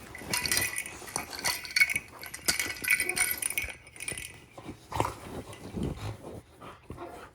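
A jingle-bell cat toy with a ball inside rattling and jingling as a Rottweiler puppy chews and shakes it, the jingling thickest in the first half, with scattered knocks and clicks throughout.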